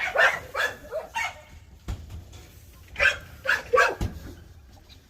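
Kennel dogs barking in two quick bursts of about three barks each, with a couple of sharp knocks between them.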